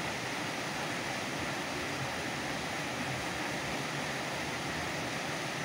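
Steady rushing of a fast-flowing river over rocks and rapids.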